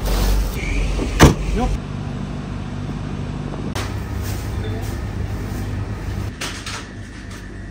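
A motor vehicle's engine running steadily, with one sharp knock about a second in.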